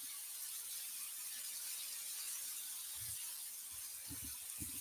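Pork belly sizzling steadily on an electric grill pan, with a few faint low thuds about three and four seconds in.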